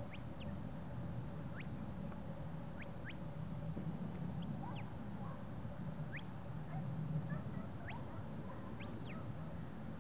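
Handler's shepherd's whistle commands directing a working Border Collie on sheep: short high whistles every second or two, some sharply rising and some arching up then down, over a low steady rumble.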